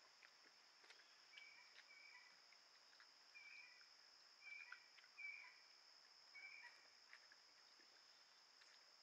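Faint, steady high-pitched drone of crickets or other insects. Short chirps are scattered through it, louder in the middle, along with faint clicks.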